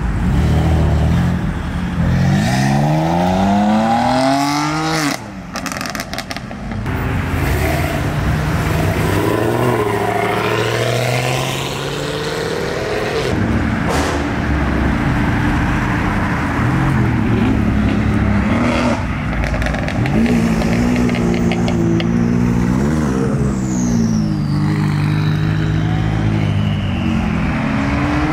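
Sports cars' engines revving and accelerating away one after another, their note climbing steeply on hard pulls, with a quick run of sharp pops about five seconds in. Later the engines run at low revs with several short throttle blips.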